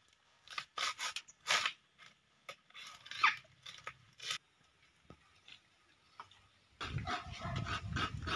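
Coconut being husked on a pointed stake: a series of rough tearing and scraping strokes, then a pause. From about seven seconds in comes a continuous rasping scrape as coconut meat is grated.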